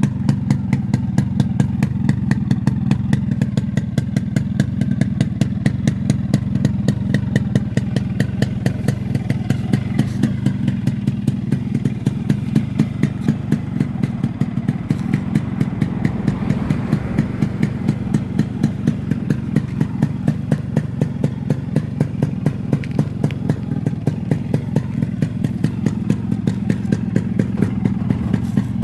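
Yamaha RXS115's single-cylinder two-stroke engine idling steadily, with a regular sharp exhaust beat several times a second.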